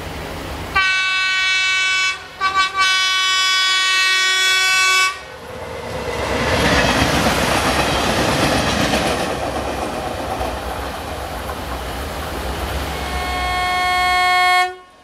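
A train horn sounds one long blast of about four seconds, broken briefly about two seconds in. Then a TFC diesel railcar runs past close by, its engine and wheels clattering over the rail joints. Another horn blast starts near the end and cuts off abruptly.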